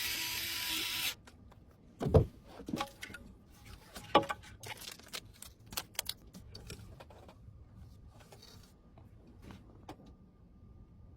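A loud steady hiss cuts off about a second in, followed by scattered clicks and knocks of computer hardware being handled and fitted, the loudest about two seconds in and another about four seconds in.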